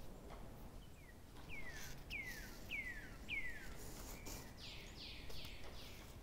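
A bird calling: a run of about five short falling whistles, a little over half a second apart, then a few broader falling sweeps near the end, over a faint background hiss.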